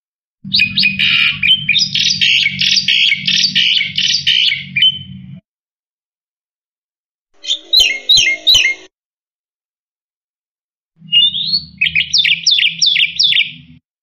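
Black-winged myna (jalak putih) singing in three bursts of rapid, repeated chattering notes, the first and longest lasting about five seconds, with silent gaps between them. A low hum runs under the first and last bursts.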